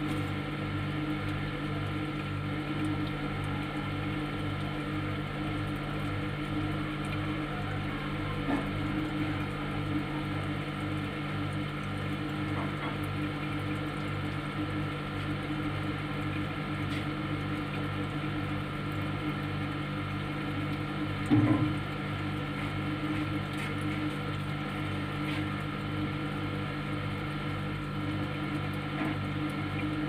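Refrigerator running with a steady hum and a low throb pulsing about twice a second. A brief knock sounds about two-thirds of the way in.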